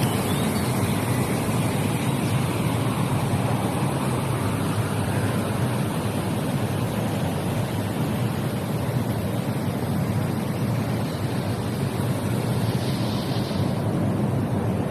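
Running water rushing in a steady, even wash of noise.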